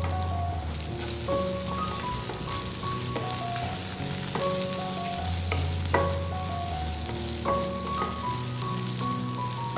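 Chicken sausage slices sizzling steadily as they fry in a nonstick pan, stirred with a wooden spatula that knocks against the pan a few times. Background music with stepping notes and a low bass plays along.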